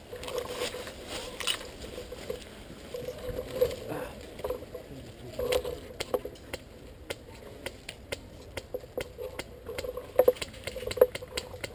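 Quiet airsoft gun firing: a string of sharp, irregular clicks, the loudest about ten and eleven seconds in.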